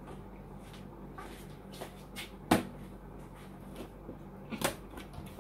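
Cardboard box of an RC tank being handled and opened: a few sharp knocks and clicks, the loudest about two and a half seconds in and another near the end, over a low steady hum.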